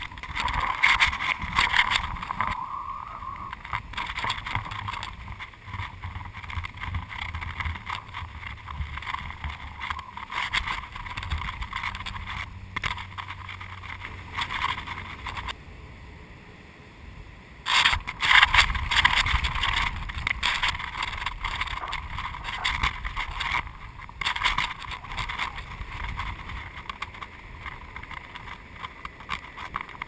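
Wind buffeting a GoPro camera as it hangs from a kite line: an uneven rushing with rapid rattling and knocking, rising and falling with the gusts.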